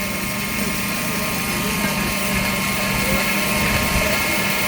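Belt grinder running while a knife blade is ground against it: a steady motor hum under a constant hiss.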